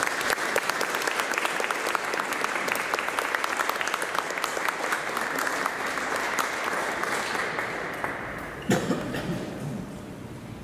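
Audience applauding: dense clapping that thins out and fades near the end, with a single thump just before it dies down.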